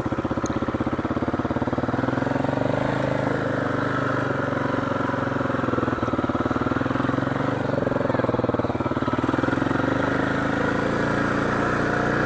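Motorcycle engine running under way, a steady pulsing exhaust note whose pitch rises and falls a little with the throttle.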